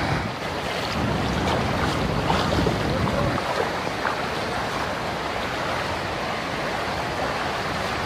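Steady rush of swollen brown floodwater pouring over a weir and racing down a flooded river, with wind noise on the microphone. The deep rumble eases about three and a half seconds in.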